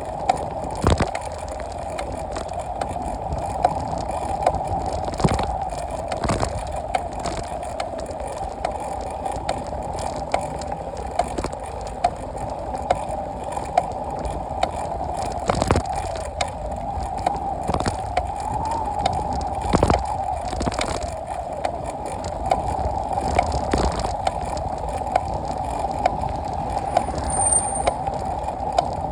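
An annoying mechanical noise: a steady mid-pitched hum or whine with irregular sharp clicks and knocks throughout.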